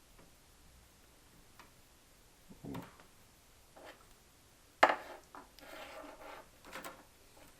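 Scattered clicks and knocks of hands working cables and connectors inside a PC case, with one sharp click about five seconds in.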